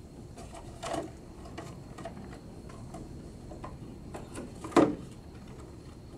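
Cardboard playing-card boxes being handled and set down on a table: scattered light taps and clicks, a knock about a second in, and one sharp, louder knock near the five-second mark.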